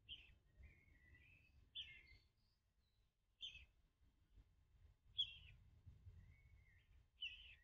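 A young bird chick calling for its mother: five short, falling peeps spaced every second and a half to two seconds, with softer chirps between them, the loudest about five seconds in.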